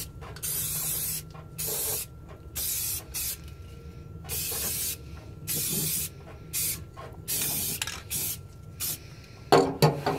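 Aerosol spray can of primer paint hissing in a string of short bursts, about one a second, as it is sprayed onto bare welded sheet metal. A brief, louder knock comes near the end.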